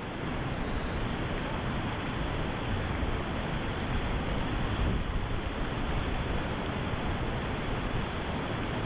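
Steady rush of whitewater river rapids around a raft, with wind rumbling on the microphone.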